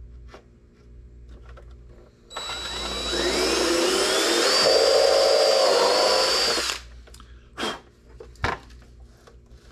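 Cordless drill with a step bit boring a hole through the ABS plastic of a motorcycle lower-fairing speaker pod, for speaker wire. The motor whine starts about two seconds in, climbs in pitch, holds for a couple of seconds and stops suddenly; a few light knocks follow as the part is handled.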